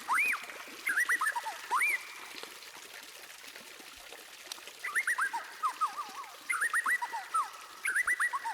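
White-rumped shama (murai batu) singing: bursts of quick, sliding whistled notes, a pause of about two seconds mid-way, then a longer run of rapid notes. A faint trickle of water runs underneath.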